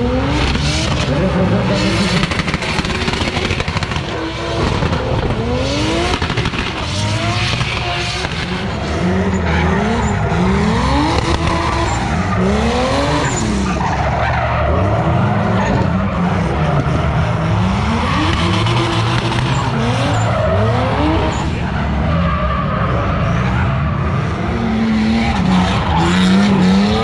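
Drift car sliding sideways around a tight circle. The engine revs rise again and again while the rear tyres screech.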